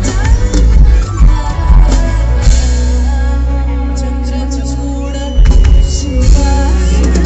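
Loud music with singing, carried by heavy bass and drums. The beat drops out for a long held chord in the middle, and the drums come back about five seconds in.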